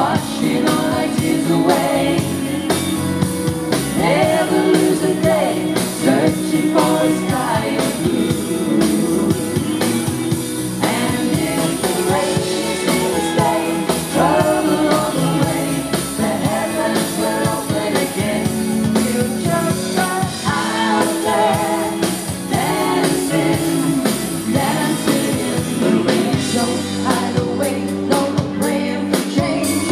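Live pop song played by a band with lead vocals sung over it, steady throughout, in a concert-hall audience recording.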